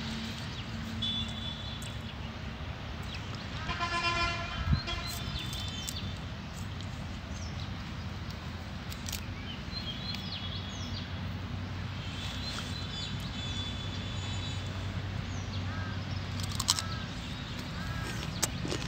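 Outdoor field ambience: a steady low rushing noise with small birds chirping now and then. A brief pitched sound comes about four seconds in, and there are a couple of sharp clicks.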